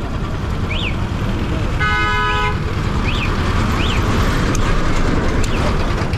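Road traffic passing close, with a truck's engine rumbling as it goes by. A vehicle horn honks once for about half a second about two seconds in, and short high chirps sound a few times.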